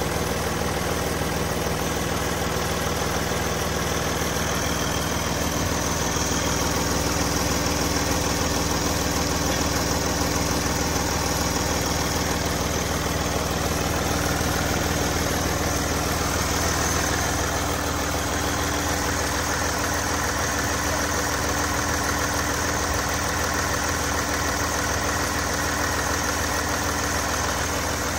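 Mercedes-Benz OM642 3.0-litre V6 common-rail turbo diesel idling steadily, heard from above the engine in the open bay.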